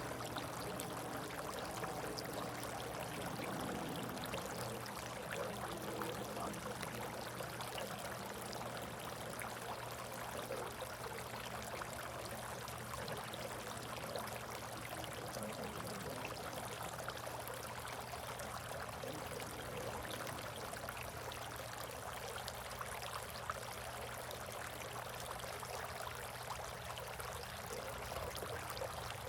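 Water trickling and splashing steadily in a bird bath, with a faint steady low hum underneath.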